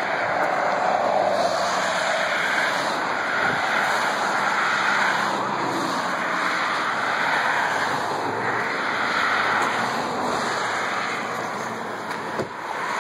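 Traffic passing on a two-lane highway, the tyre and engine noise swelling and fading as each car goes by. A short knock near the end.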